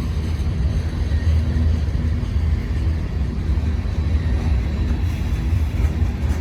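Long freight train of tank cars rolling past close by: a steady low rumble of steel wheels on the rails.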